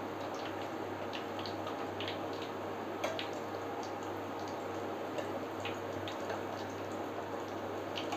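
Sattu puris deep-frying in hot oil in a kadhai: a steady sizzle with scattered crackling pops, over a low steady hum. A slightly louder click comes about three seconds in.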